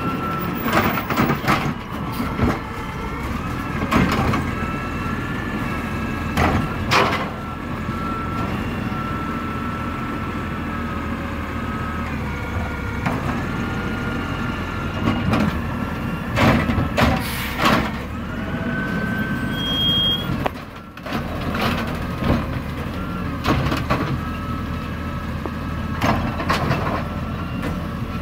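Garbage truck running steadily, with a wavering high whine over the engine and repeated sharp clanks and bangs from its lifting and packing gear, several of them in quick pairs.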